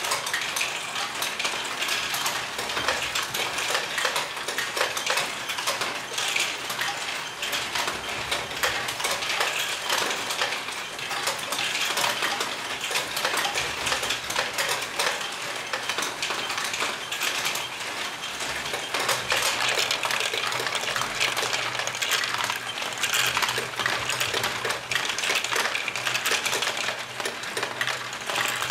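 LEGO Great Ball Contraption modules running: a dense, continuous clatter of small plastic balls rattling through lifts, ramps and wheels, over a steady low hum of the motors driving them.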